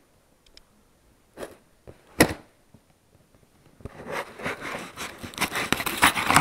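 Packing tape on a cardboard box being cut with a kitchen knife: two short sharp cuts in the first half. Then, from about four seconds in, continuous crackling and tearing as plastic wrap and tape are pulled off the box.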